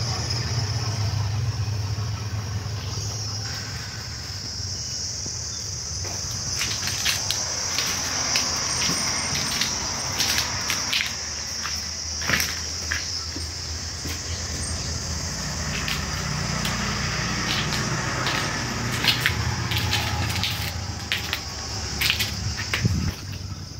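Steady high-pitched insect chirring, under a low rumble. From about a quarter of the way in come many irregular clicks and crunches, footsteps on a debris-strewn floor.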